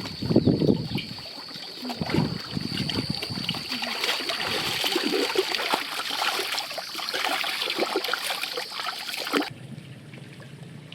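Water splashing and trickling in irregular bursts, with a steady high tone behind it that cuts off suddenly about nine and a half seconds in.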